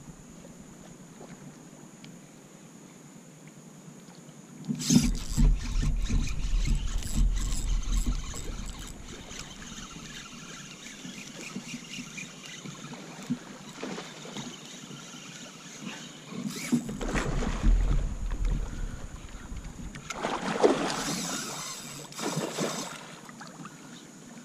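Bumps, rubbing and low rumbling from an angler shifting about in a plastic fishing kayak while fighting a hooked redfish on a spinning rod. It comes in three loud bouts, about 5, 17 and 21 seconds in, with quiet between.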